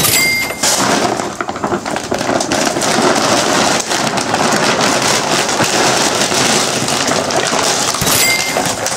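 Woven plastic sack rustling and crinkling close up as it is handled and filled: a dense, steady crackle.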